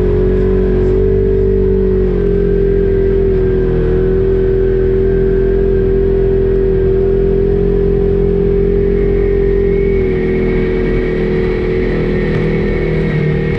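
Side-by-side UTV running at a steady speed, a constant loud drone with a steady whine over the engine. It eases off a little about ten seconds in.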